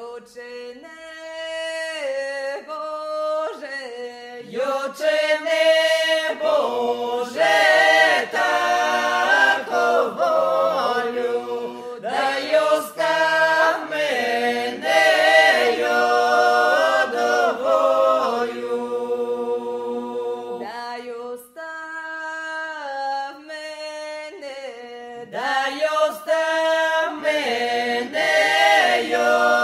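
Unaccompanied folk singing by a small group of voices in harmony, with long held notes and a short break about two-thirds of the way through.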